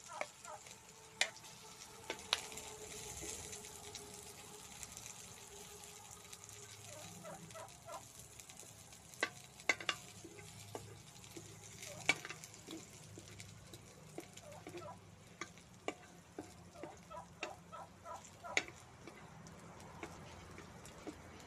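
Diced meat and garlic sizzling in hot oil in a metal wok, with a steady high hiss. Over it come frequent sharp clicks and scrapes of a metal spatula stirring against the pan.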